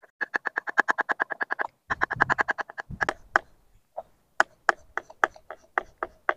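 Kitchen knife chopping button mushrooms on a wooden board, sharp strikes a few a second through the second half. In the first half a frog calls in rapid, even pulsed trains, stopping and starting.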